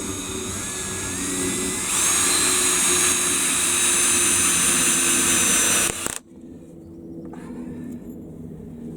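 Power drill driving a screw into a wooden plank, speeding up with a rising whine and getting louder about two seconds in, then stopping abruptly about six seconds in.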